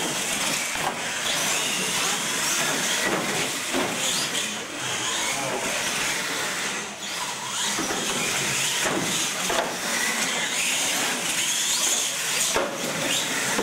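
R/C monster trucks racing side by side, their electric motors whining and rising and falling in pitch as the drivers work the throttle, with tyres running on concrete.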